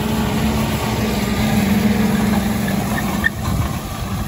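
John Deere 6215R tractor's six-cylinder diesel engine running steadily as it pulls a four-leg strip-till cultivator through the soil, easily handling the light load. It grows louder as the tractor passes close and falls away near the end.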